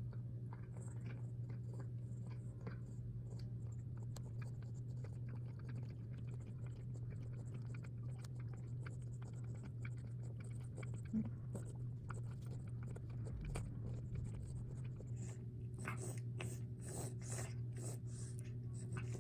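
A senior cat chewing food, a run of small wet clicks that become louder and closer together near the end, over a steady low hum.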